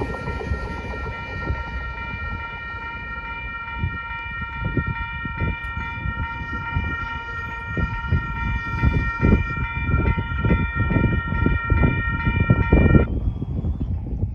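Railroad grade-crossing warning bell ringing steadily while the gates rise after the train has cleared, cutting off suddenly near the end as the gates come fully up. Wind buffets the microphone in gusts underneath.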